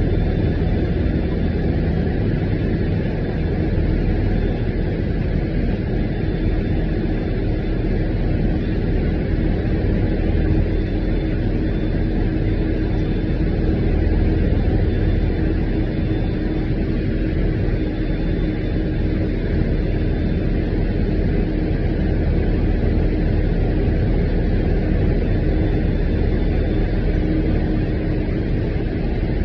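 Steady engine rumble and running noise heard from inside a city transit bus, with a faint steady whine over it through much of the ride.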